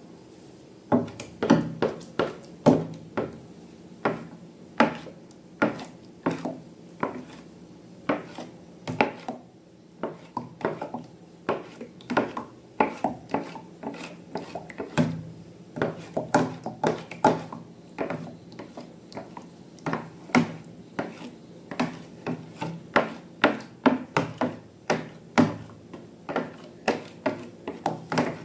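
Slime being worked by hand or stirred in a container, giving irregular sharp clicks, pops and taps, about two to three a second.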